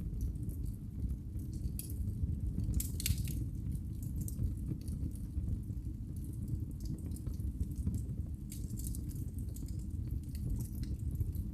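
Wood fire burning in a fireplace: a steady low rumble of flame with scattered crackles and pops, in clusters about three seconds in and again near nine seconds.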